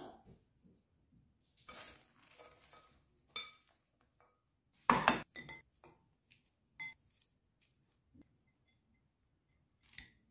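Metal tongs and a fork clinking and scraping against a bowl as salad is tossed and stirred: a scattered series of short clinks, the loudest about five seconds in.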